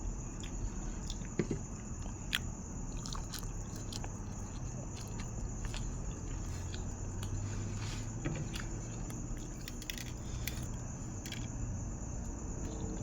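A person chewing and biting food, with scattered short mouth clicks and smacks over a steady low hum.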